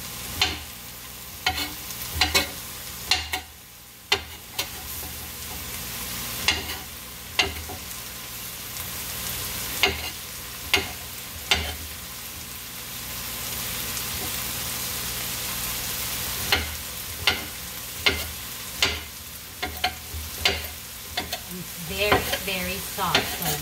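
Chef's knife slicing a patola (ribbed luffa squash) into thin rounds on a cutting board: a sharp knock as the blade hits the board roughly once a second, with a pause in the middle. Under it runs a steady sizzling hiss from the frying pan.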